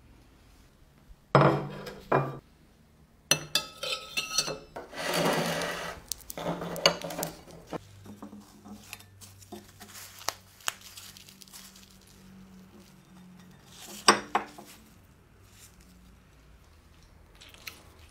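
Clinks, knocks and scrapes of small metal utensils against a ceramic plate and a small cast-iron skillet, in separate bursts. A longer scraping stretch comes about five seconds in.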